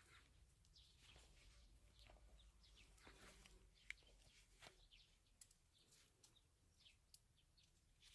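Near silence with faint, scattered bird chirps, short falling notes, and a few light ticks.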